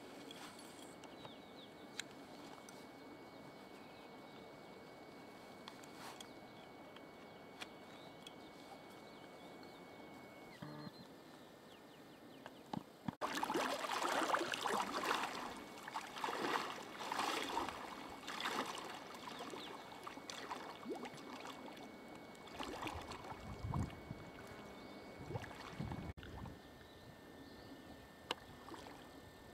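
River water sloshing and splashing around a person's legs as she wades through it in rubber boots. The first half is only faint outdoor hiss; the splashing starts abruptly about halfway through, comes in quick uneven surges, and falls away shortly before the end.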